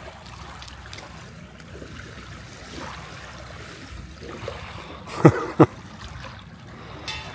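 Lake water lapping and trickling at the shore, with two sharp loud knocks close to the microphone, about a third of a second apart, a little past five seconds in.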